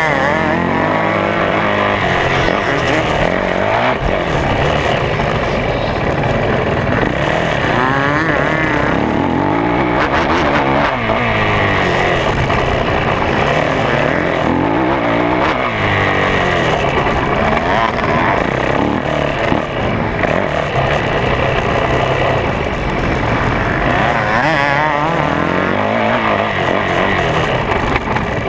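Yamaha YZ450F four-stroke single-cylinder motocross engine heard close up from on board, revving hard up and down again and again as the throttle is worked through the corners and jumps of a dirt track.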